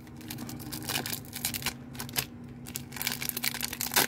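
Foil wrapper of a Panini Prizm basketball card pack crinkling in the hands and being torn open, in a quick run of irregular rustles and crackles.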